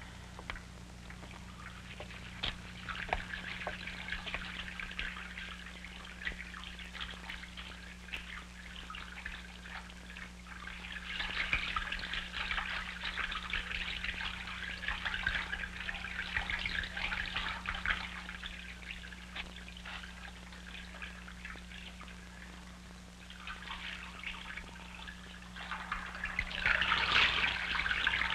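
Water from a tap splashing into a washbasin as someone washes his face with his hands, swelling and easing off in spells and loudest near the end, over a steady low hum.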